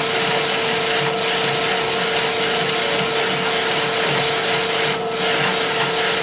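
Drill press running a hole saw through steel plate: a steady mid-pitched motor hum under a continuous scraping, grinding hiss of the teeth cutting metal, which eases briefly about five seconds in.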